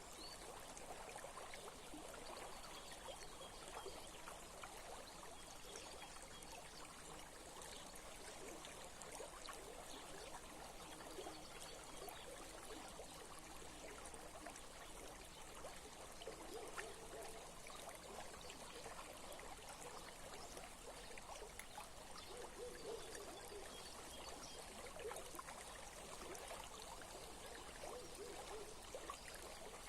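A small stream trickling and babbling steadily over stones, faint and even throughout.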